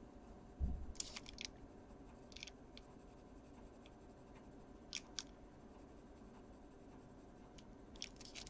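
Faint scratching of a Caran d'Ache Pablo coloured pencil on paper in short strokes, with a soft low thump about half a second in.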